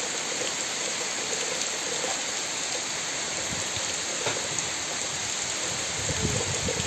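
Heavy rain falling steadily on a wet, puddled yard, palm fronds and grass, a dense even hiss. A few low thumps and rumbles come in near the end.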